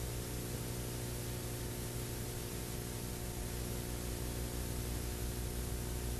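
Steady hiss with a low electrical hum under it: the noise floor of an old analogue video recording, with no other sound.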